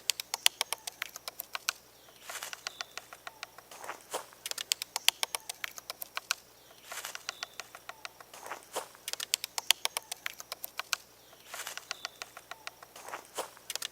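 Quick, light taps on the branch of an acacia tree, coming in rapid runs of about a second and a half with short pauses between them. The tapping is meant to disturb the tree's guard ants.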